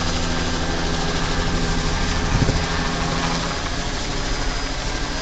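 Small single-rotor helicopter flying overhead: a steady, fast beat of the main rotor over a constant engine drone, growing slightly fainter in the second half. There is a brief low thump about halfway through.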